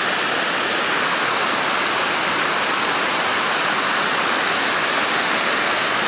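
Waterfall: water rushing steadily down smooth rock slabs in a shallow cascade, a continuous even rush.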